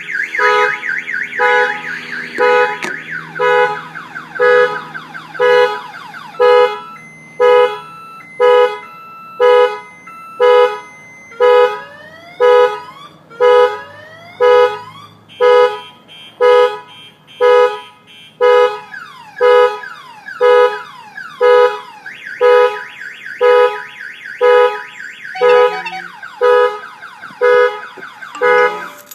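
Aftermarket Titan car alarm going off on a 2010 Honda S2000. Its siren cycles through several tones: a fast warble, then rising whoops, then chirps, then the warble again. Over it the car's horn honks about once a second, and everything stops at the very end.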